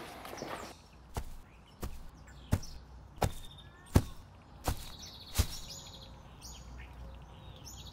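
Seven sharp, evenly spaced thuds about two-thirds of a second apart, the loudest about four seconds in, with birds chirping in the background.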